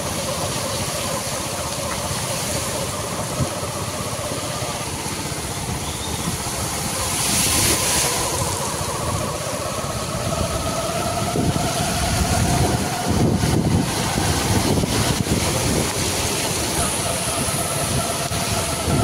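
Street traffic driving through floodwater: scooter, motorcycle and car engines running, with a steady hiss of tyres and water. A brief, louder hiss comes about eight seconds in.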